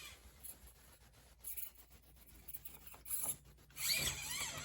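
Axial SCX24 micro crawler scraping and clicking over painted spray-foam rocks, with tyres and chassis rubbing in short scratchy bursts. A faint electric-motor whine that wavers in pitch comes in near the end.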